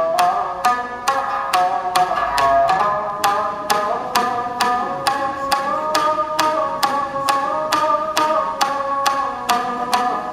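Shamisen played solo, struck with a plectrum: a steady run of about three strokes a second, each a sharp snap followed by a ringing note.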